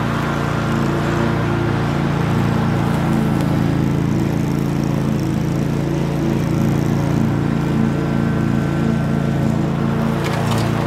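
Commercial walk-behind lawn mower engine running steadily while the mower cuts through overgrown grass, with a short burst of clicking near the end.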